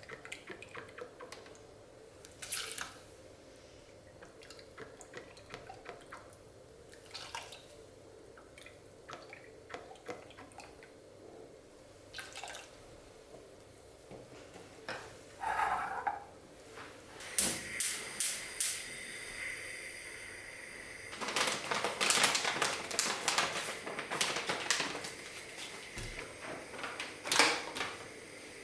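Kitchen sink work: scattered light clinks of dishes and utensils, then about halfway through a tap starts running with a steady hiss while dishes clatter more densely, loudest a few seconds later.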